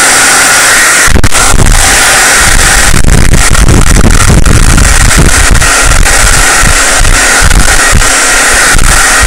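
Handheld hot-air blower running steadily, loud and close, heating the phone to soften its adhesive for disassembly.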